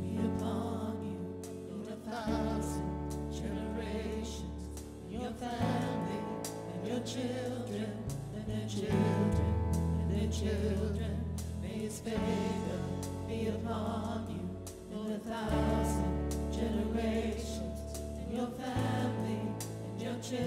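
Live worship band playing a song: acoustic guitar, keyboard and bass hold chords that change every few seconds, with voices singing over them.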